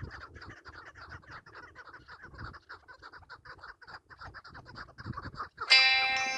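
Chukar partridge calling: a rapid, continuous series of short clucking notes. Near the end, loud plucked-string music starts.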